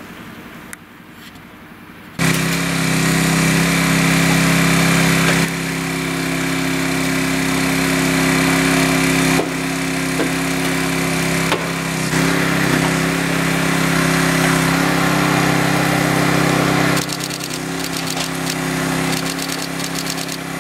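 Hydraulic rescue cutter at work on a burned-out car's body, its power unit running in a loud, steady drone that starts about two seconds in and drops lower near the end, with a few sharp cracks along the way.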